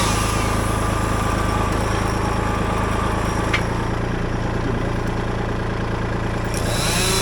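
Kubota L2501 compact tractor's three-cylinder diesel engine running steadily. A faint high whine over it stops with a click about three and a half seconds in.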